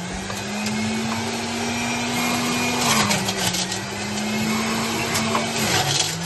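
Electric juicer running as pieces of orange are fed in: its motor hum sags in pitch under the load about three seconds in and again near the end, then climbs back, with short bursts of grinding noise as the fruit is pressed through.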